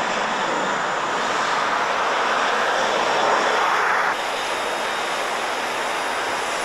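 Jet engine noise of an Airbus A320 rolling down the runway, swelling louder, then cut off abruptly about four seconds in to a steadier, lower jet noise of an airliner at the gate.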